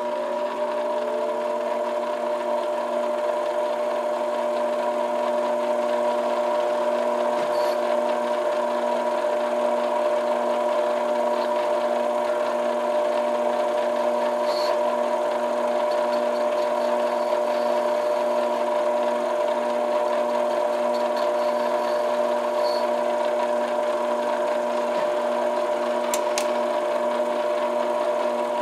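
Small metal lathe turning an acrylic pipe stem. Its motor and gears rise in pitch over the first second, then run steadily with a constant many-toned whine and a few faint light clicks.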